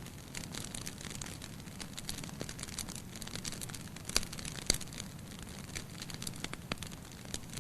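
Bonfire burning: dense crackling and sharp popping over a low steady rush of flames, with two louder pops a little past the middle.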